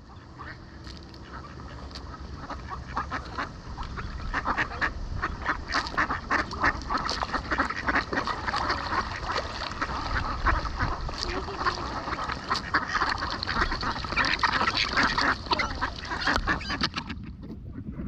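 A flock of mallards quacking, the calls thickening from a few seconds in to a dense chorus of overlapping quacks as the ducks crowd in to feed, easing slightly near the end.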